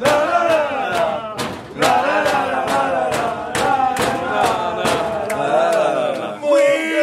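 Crowd of football supporters chanting in unison over a steady beat of about two and a half strokes a second, with a held note near the end.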